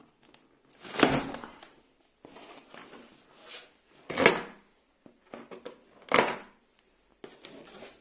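Plastic packing straps on a cardboard box being cut with a knife: three loud, sharp snaps as the straps part, about a second in, near the middle and a couple of seconds later, with softer scraping of blade and cardboard between them.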